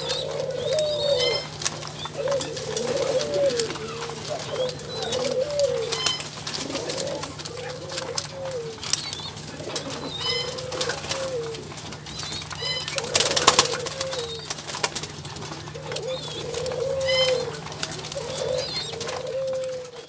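A cage of Barbary doves cooing over and over, one coo running into the next, with short high chirps now and then. A brief clatter comes about thirteen seconds in.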